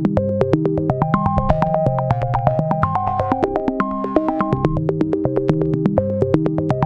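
Background music: an electronic synthesizer tune with a fast steady beat and a stepping keyboard melody over a bass line.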